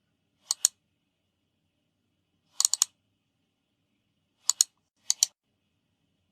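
Computer keyboard keys clicking in four short groups of two or three keystrokes, with silence between the groups.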